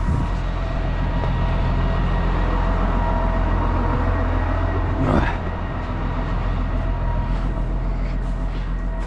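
Farm tractor's diesel engine running steadily at idle. About five seconds in there is a short sharp sound, and after it the engine sound drops slightly.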